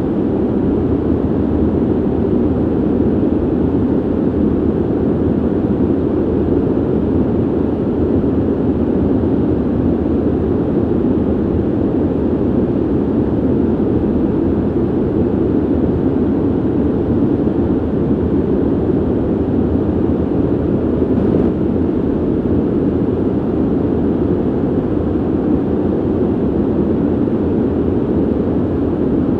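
Steady ventilation noise: an even, low rush of air from a ventilation system, deep rather than hissy, with no change in level.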